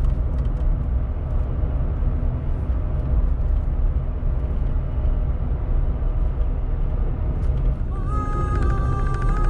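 Car driving, with a steady low rumble of road and engine noise. Music comes in about eight seconds in.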